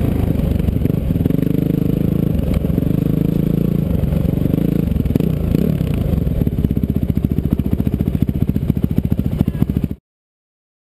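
Onboard off-road race engine running at low speed on a sand track. Its pitch rises and falls with the throttle, then it settles into slow, even firing pulses. The sound cuts off abruptly about ten seconds in.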